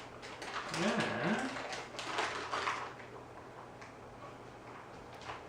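Alaskan Malamute puppy giving a short low grumble that rises and falls in pitch, about a second in, among light clicks and rustles that die down after about three seconds.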